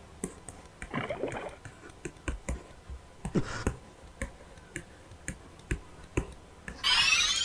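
Sound effects for an animated intro logo: irregular sharp clicks and ticks, two short rushes of noise about one and three and a half seconds in, then a loud, bright hissing burst near the end.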